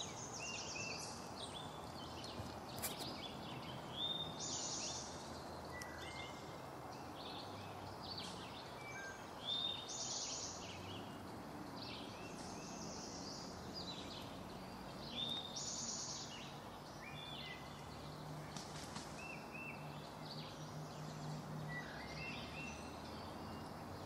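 Small songbirds singing short, high-pitched phrases, one every two or three seconds, over a faint steady outdoor hiss.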